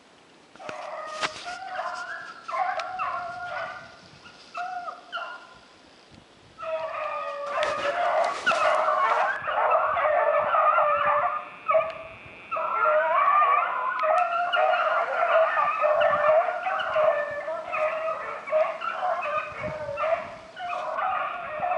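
A pack of rabbit hounds baying, several voices overlapping. Scattered single bays at first, then from about six seconds in a steady, continuous chorus, the sound of hounds running a rabbit's scent trail.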